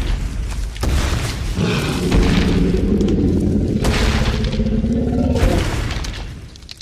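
Gorosaurus monster sound effect: a deep rumbling boom, with a long, pitched, roar-like cry over it from about a second and a half in, fading out near the end.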